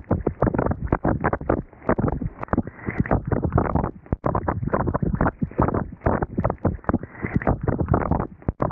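Storm runoff water gushing over and around a submerged camera, heard as a dull, choppy rushing with rapid irregular surges and brief drops as the water pours onto the microphone.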